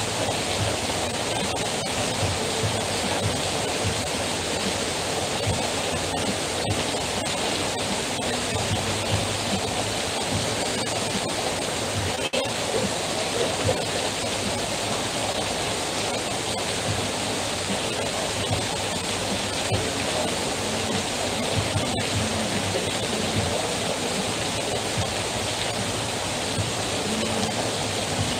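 Heavy rain falling steadily, with water streaming off the edge of a canopy roof; a dense, even hiss that does not let up.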